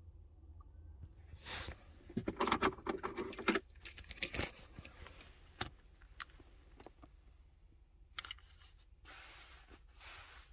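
Handling noises: keys jangling, with rustling and sharp clicks coming in bursts, busiest a couple of seconds in and again near the end, over a steady low hum.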